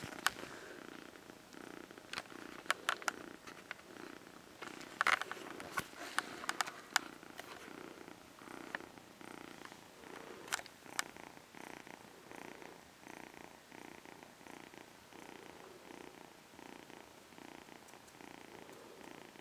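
Kitten purring close up, a steady rhythmic purr that swells and fades with each breath. Several sharp clicks are scattered through the first half.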